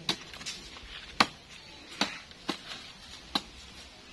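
Machete chopping at brush and roots, about six sharp strikes at uneven intervals.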